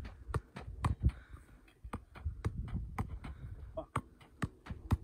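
Soccer ball being juggled: a run of dull taps as it bounces off feet and legs, two or three a second at an uneven pace, with shoes scuffing on loose gravel.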